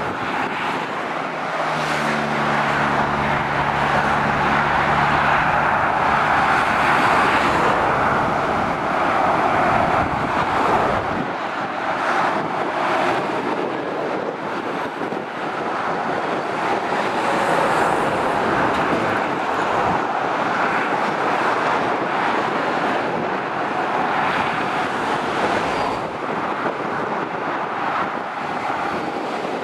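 Dual-carriageway motorway traffic: a steady roar of cars and lorries that swells and eases as vehicles pass. A heavy lorry's engine hums low and steady in the first few seconds.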